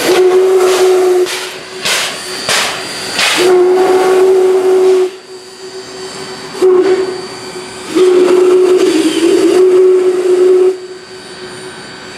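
Steam whistle on Baldwin 0-6-0 locomotive #26 blowing four blasts, long, long, short, long: the grade-crossing signal. Sharp exhaust chuffs and steam hiss from the moving locomotive sound through the first half.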